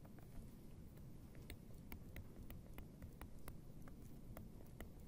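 Faint, irregular clicks and taps of a stylus on a tablet screen while words are handwritten, a few a second, over a low room hum.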